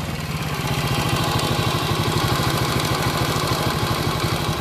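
Small single-cylinder engine of a 50cc step-through moped idling steadily with an even, rapid putter.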